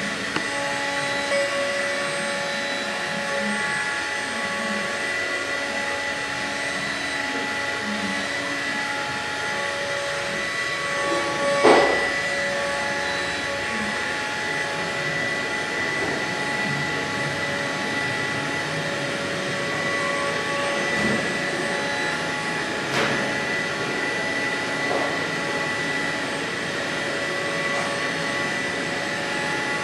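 MillStep PAX6050V2 CNC milling machine cutting plastic with an end mill: a steady high spindle whine over the noise of the cut. A sharp knock about twelve seconds in, and a smaller one a little after twenty-three seconds.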